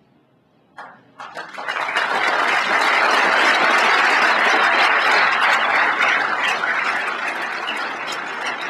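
Audience applauding in a large hall: the clapping starts about a second in, builds quickly to full strength, holds, then slowly thins toward the end.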